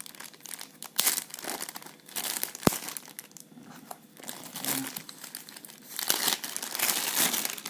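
Wrapping being crinkled and torn by hand as a packed item is unwrapped, in irregular crackling handfuls with louder bursts about a second in and again near the end. A single sharp click sounds in the middle.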